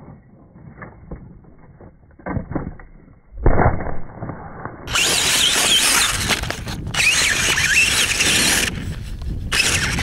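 A brushless RC rock buggy crawling over dirt clods. Its tyres knock and crunch on the clods, with one loud knock about three and a half seconds in. From about halfway on, the motor and gear drivetrain whine in short rising and falling bursts with brief pauses as it claws up the mound.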